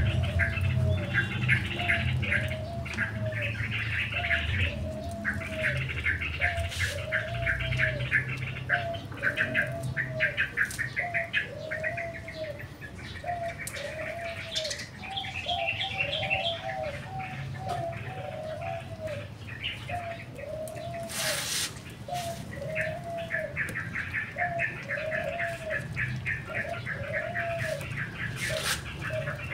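Birds calling: one bird repeats a single short arched call about every second and a half, while bouts of rapid chattering notes come and go higher up. A low rumble runs under the first several seconds.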